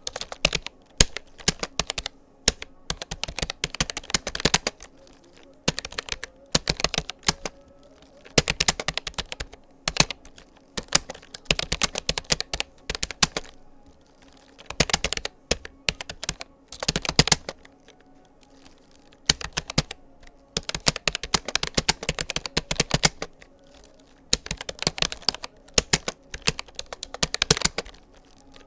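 Rapoo computer keyboard being typed on at a steady touch-typing pace: runs of rapid key clicks broken by short pauses every few seconds.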